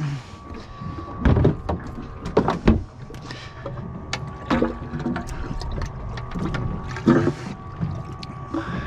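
Water sloshing and splashing in a boat's livewell as a small dip net is worked in it, with several sharp knocks from hatch lids and gear on the fibreglass deck and a faint steady hum underneath.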